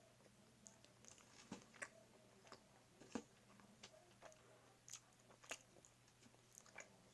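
Faint chewing of a sausage dog (sausage in a bun with chili and ketchup), with soft wet mouth clicks and smacks coming irregularly, a few each second, the sharpest about three seconds in.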